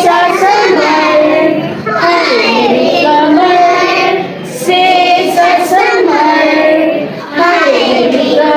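A child singing a song or sung poem, in phrases of two to three seconds with brief breaks between them.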